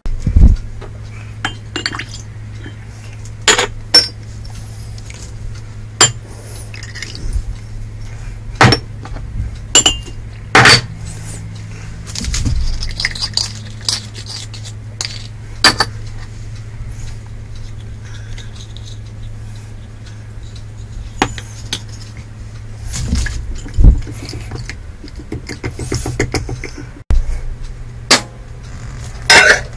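Kitchen utensil handling: a dozen or more separate sharp clinks and knocks of glass, bottles and a spoon against a glass measuring cup as sauce ingredients are added, over a steady low hum.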